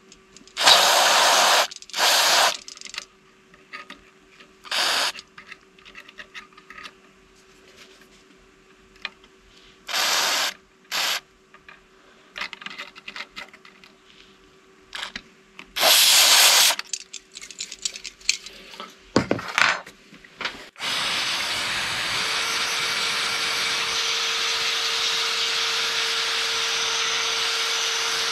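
Short hissing bursts of electronic contact cleaner sprayed from an aerosol can onto a power-amplifier relay's contacts, about six squirts. About two-thirds of the way through, a louder steady rushing noise with a faint hum starts and continues.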